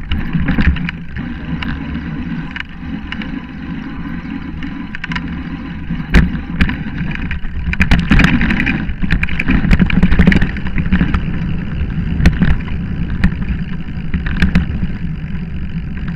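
Mountain bike rattling down a rough forest trail, picked up through a bike-mounted camera: a steady rumble of tyres over leaf litter and stones, with many sharp knocks as the bike hits bumps, busiest near the middle.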